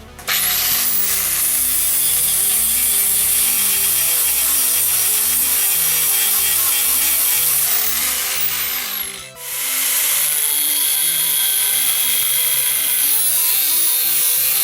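Electric power tool grinding metal in two long passes, with a short break about nine seconds in; its high whine climbs as it starts and drops just before the break.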